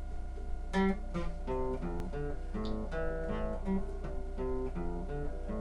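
Acoustic guitar playing an opening of picked notes and chords, starting about a second in.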